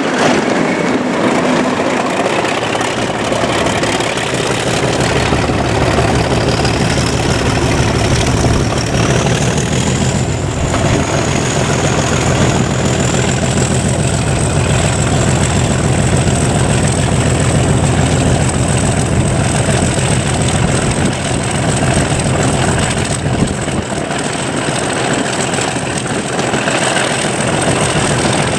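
English Electric Class 37 diesel locomotive's turbocharged V12 engine working hard under power, its low beat growing stronger about five seconds in. The turbocharger whistle rises in pitch over the first ten seconds, then holds a steady high note.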